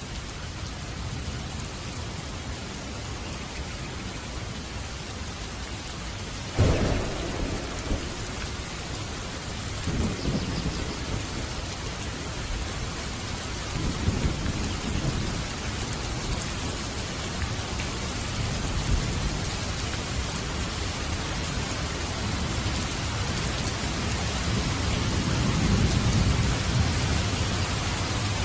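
Steady rain in a thunderstorm, with a sudden thunderclap about a quarter of the way in, further rolls of thunder after it, and a long low rumble of thunder building near the end.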